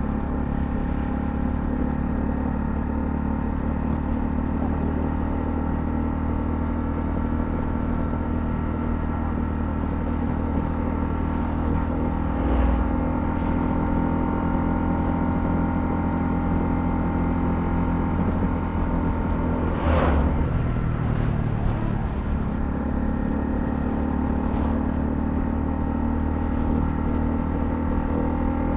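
Honda CL250's single-cylinder engine running at a steady cruising speed while riding, its pitch nearly constant. A sharp knock about twenty seconds in and a smaller one a few seconds before the middle.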